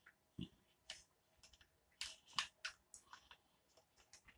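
Plastic snack wrapper handled and crinkled in the hands, giving faint irregular crackles and clicks, some in quick clusters, with one soft thump about half a second in.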